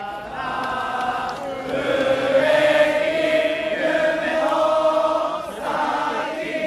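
A crowd of baseball cheering-section fans chanting a cheer song together in unison, holding long notes; it gets louder about two seconds in.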